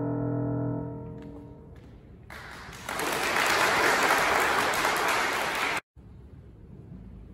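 The final chord of a piece on a grand piano fading away, then an audience applauding for about three seconds before the applause cuts off suddenly.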